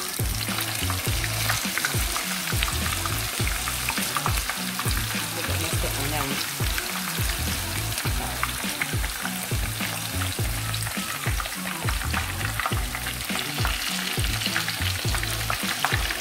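Egg foo young patties of egg, bean sprouts and shrimp deep-frying in hot oil in a pan: a dense, steady crackle and sizzle, with a spoon stirring and scooping batter in the oil, over a low uneven rumble.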